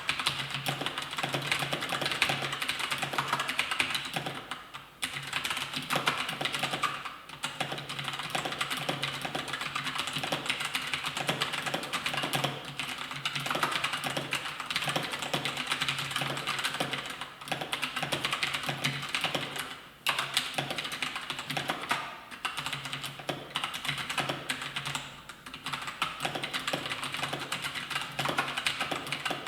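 Fast, continuous typing on a Razer BlackWidow Chroma v2 mechanical keyboard with Razer Orange tactile switches: a dense clatter of keystrokes, broken by brief pauses about 5, 7 and 20 seconds in.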